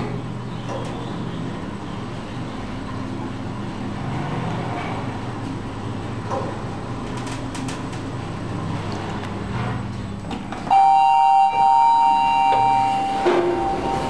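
Schindler machine-room-less elevator car travelling with a steady low hum, then, about three-quarters of the way through, a loud electronic arrival chime rings: one held two-pitch tone lasting about two seconds. A knock follows near the end.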